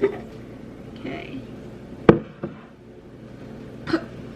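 A sharp knock about two seconds in, followed shortly by a softer one, among quiet kitchen handling sounds and a brief spoken "okay".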